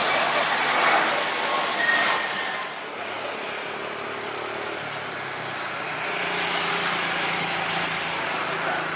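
Vehicle noise: a loud passing sound that fades about two and a half seconds in, then a steady, quieter engine hum that grows a little louder near the end.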